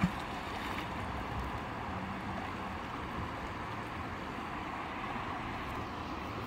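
Steady wash of a flowing river and wind noise, with a single sharp click right at the start.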